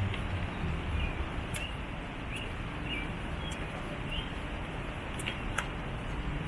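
A small bird chirping several short times in the first few seconds, over a steady outdoor rush of noise, with a few faint sharp clicks.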